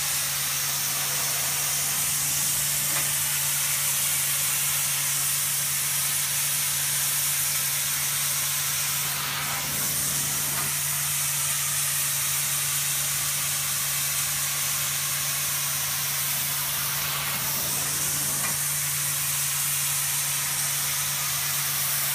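Carpet-cleaning extraction wand in use: a steady loud hiss of suction through the wand as it is pulled across the carpet, over a steady low hum from the extraction machine.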